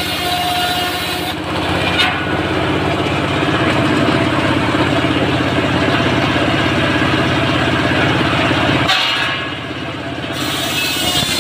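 Engine-driven circular sawmill running while its large blade rips lengthwise through a sengon log. The steady engine drone changes under load about two seconds in, holds through the cut, then dips and eases briefly near the end.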